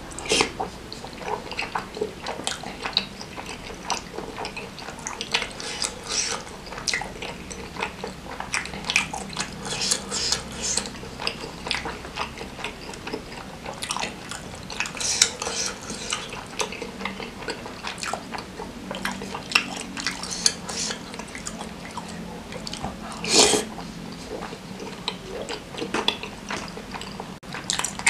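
A person chewing and slurping saucy meatballs close to the microphone: irregular wet smacks and mouth clicks, with occasional clinks of a metal fork against a glass bowl.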